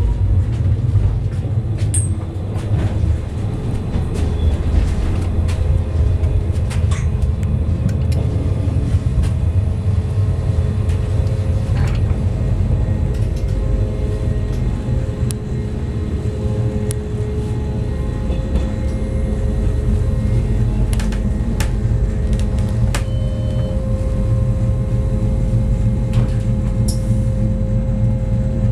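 Interior of a Rhaetian Railway metre-gauge electric train under way: a steady low rumble of wheels and running gear with faint steady motor tones, broken by scattered sharp clicks and knocks.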